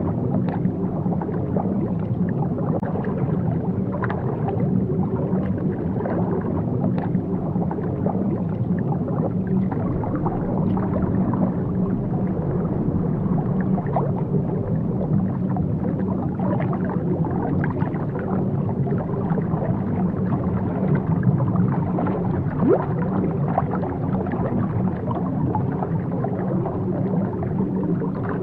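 Underwater ambience: a steady, muffled low rumble of water, with faint scattered clicks and little high sound.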